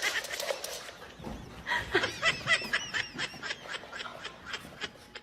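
A quick run of short, high-pitched animal calls, about four to five a second, starting a couple of seconds in.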